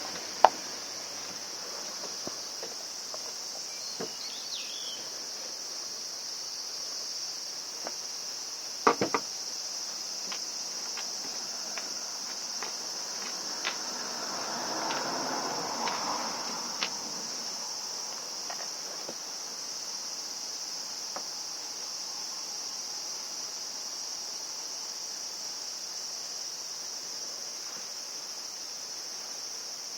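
Insects, likely crickets, singing as one continuous high-pitched drone. Over it come a few light clicks and knocks: a sharp click about half a second in, a quick cluster of three knocks about nine seconds in, and scattered small ticks with a faint rustle a little past the middle.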